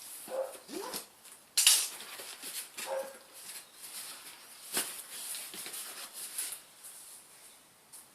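A dog whining and yipping a few times in short, pitched calls. Under them run rustling and knocks from packaging being handled, loudest a little over a second in.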